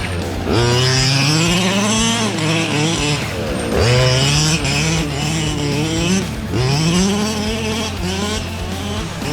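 Two-stroke gas engine of a 1/5-scale Losi DBXL 2.0 RC buggy, revving up and falling back over and over in repeated bursts of throttle.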